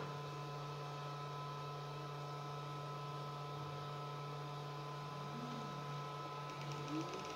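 Tronxy X5SA 3D printer powered up: a steady electrical hum with several faint steady tones. Near the end come two short whines that rise and fall in pitch, as a stepper motor makes brief moves.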